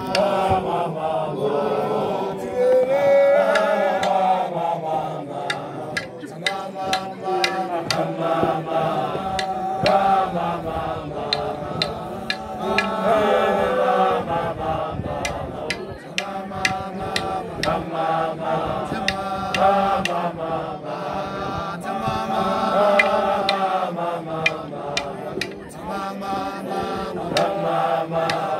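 A group of voices singing a traditional Sepedi kosha song in a chant-like style, with frequent sharp percussive hits throughout.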